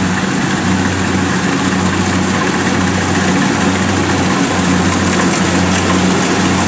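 Kubota DC70 combine harvester running steadily under load while cutting and threshing rice, its diesel engine a continuous low drone under the even mechanical noise of the machine.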